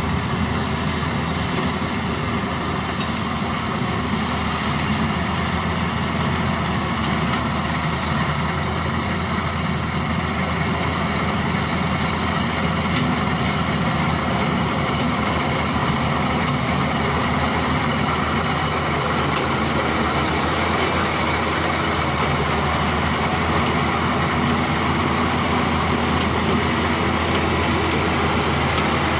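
DR 40 E combine harvester running steadily, its engine and machinery holding a constant level.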